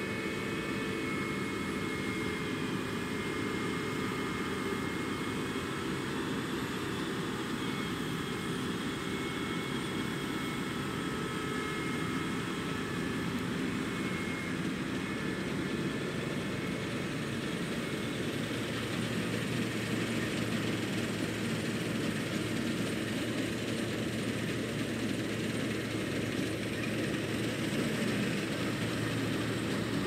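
Claas Lexion combine harvester running while cutting and threshing wheat: a steady engine and machinery drone that grows a little louder and deeper in the second half as the machine draws near.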